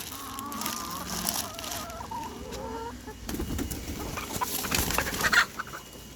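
Domestic hens clucking in drawn-out, wavering calls, then a rustling noise that peaks loudest about five seconds in.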